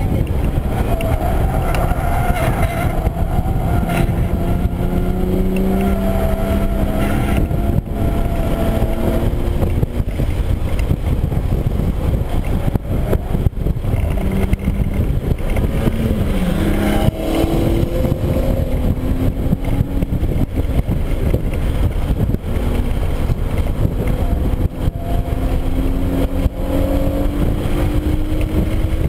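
Cabin sound of a 2013 Hyundai Genesis Coupe 3.8 R-spec's 3.8-litre V6 being driven hard on a race track, under heavy road and tyre rumble. The engine note climbs steadily under acceleration, drops and jumps once about halfway through with a gear change, then climbs again toward the end.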